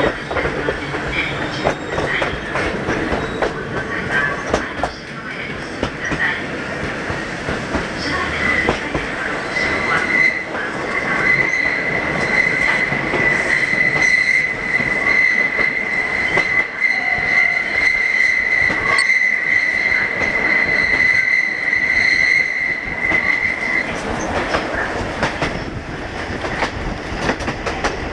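Small electric train (an ex-Tokyo Ginza Line car) running along the track with wheel and rail noise. About ten seconds in, a steady high-pitched wheel squeal sets in. It holds for about fourteen seconds, then cuts off as the wheels grind through a curve.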